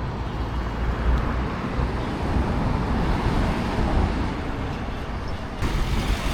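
Road traffic noise: a steady rumble of vehicles, with a sudden change in its sound about five and a half seconds in.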